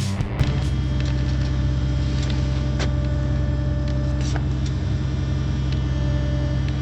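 Engine of the machine lifting a large rock, running steadily at constant speed, with a few faint knocks.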